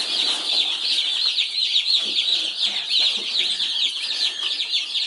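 A brooder full of day-old meat chicks and turkey poults peeping all together: a dense, continuous chorus of many high, short, overlapping chirps.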